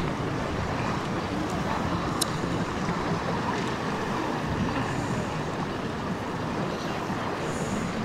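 Shallow sea water sloshing and lapping right at the microphone, with a steady rush of wind noise.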